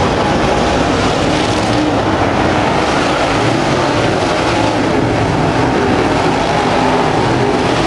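Dirt late model race cars' V8 engines racing around the track, a loud, steady mix of several engines.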